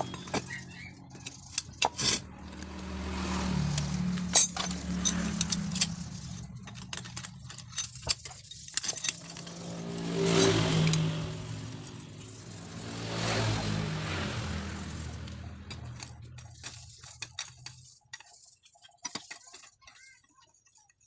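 Sharp metallic clinks and taps of tools and small engine parts being handled, scattered through most of the stretch. Under them, passing road vehicles rise and fade three times, dying away near the end.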